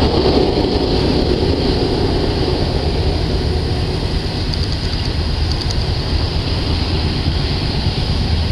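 Double-stack intermodal freight train rolling past, a steady rumble of wheels on rail from its container well cars.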